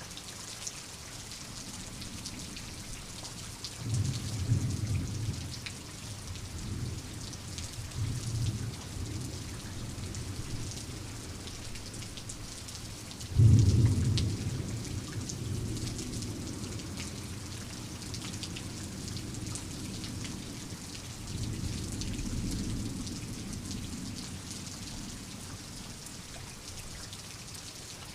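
Steady rain with rolls of thunder: low rumbles about 4 s and 8 s in, a sudden loud clap and rumble at about 13 s that fades slowly, and another long low roll starting about 21 s in.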